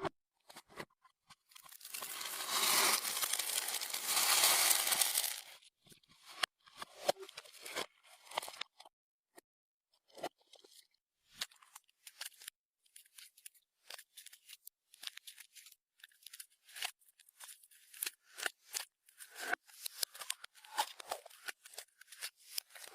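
Clear slime being worked by hand, giving short sticky clicks and pops at irregular intervals, with a denser stretch of crackling about two to five seconds in.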